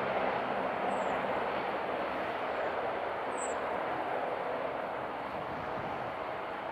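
Twin turbofan engines of an Embraer E175 airliner on short final, a steady jet rush that eases off slightly as it flares to land.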